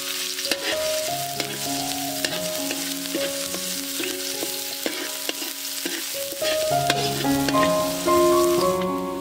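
Minced garlic sizzling in hot oil in a wok, with a slotted spatula scraping and tapping against the pan as it is stirred. Background music with held notes plays underneath.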